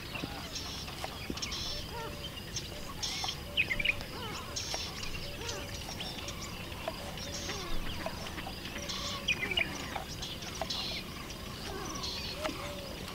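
Birds chirping in rural outdoor ambience: many short, scattered calls over a steady background hiss.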